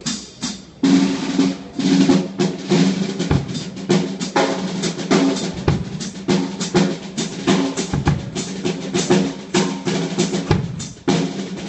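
Drum kit played during a sound check: a fast, busy run of snare and bass drum hits with the drums ringing, breaking off briefly just after the start.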